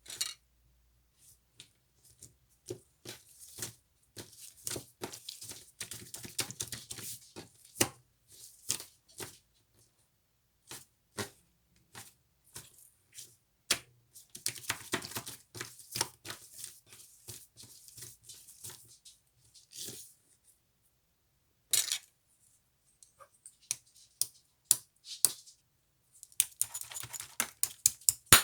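Irregular runs of sharp clicks and clatter from small hard objects being handled, with short pauses between runs.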